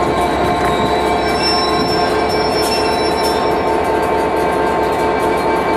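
Class 67 diesel locomotive passing slowly at close range, its EMD two-stroke V12 engine running steadily under a set of constant high-pitched squealing tones.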